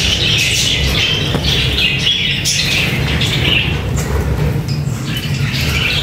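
Caged budgerigars chattering and chirping without pause, over a low background rumble.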